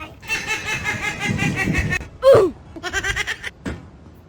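A person laughing in rapid, repeated bursts, broken about two seconds in by a short vocal cry that falls in pitch, then a brief second run of laughter.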